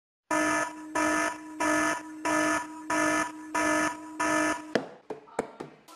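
An electronic wake-up alarm beeping in an even pattern, seven beeps at about one and a half a second, then stopping. Sharp clicks follow, about three a second, from a gas stove's spark igniter.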